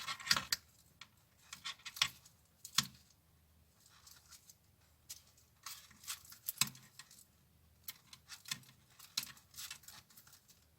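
Paper raffia yarn rustling and crinkling as a crochet hook pulls it through single crochet stitches, in faint, irregular small clicks and rustles with a few louder crackles.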